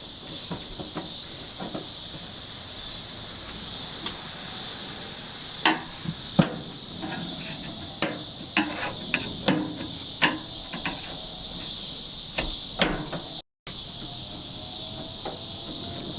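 Irregular sharp clicks and knocks of metal parts and hand tools as door window hardware is fitted back in, over a steady high-pitched chorus of crickets.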